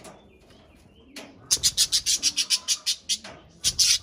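Budgerigars making a rapid run of sharp, noisy pulses, about nine a second, starting about a second and a half in, with another short burst near the end.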